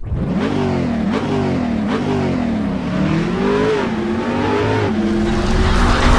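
Car engine revving up and down several times, its pitch rising and falling, with a few brief sharp clicks in the first couple of seconds.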